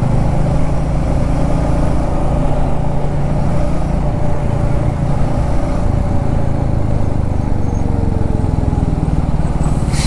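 Motorcycle engine running steadily at cruising speed, heard from the rider's seat along with road noise. A short hiss comes near the end, as a lorry is passed close alongside.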